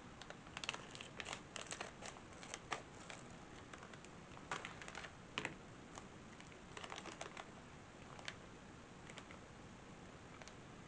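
Plastic snack wrapper crinkling and crackling in the hands as someone struggles to tear it open: faint scattered clicks in short clusters, thinning out in the second half.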